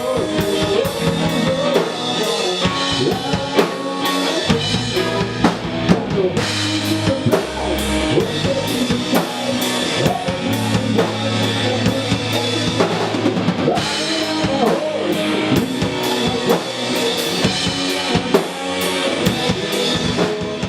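Loud rock music driven by a full drum kit, with kick, snare and rim hits throughout.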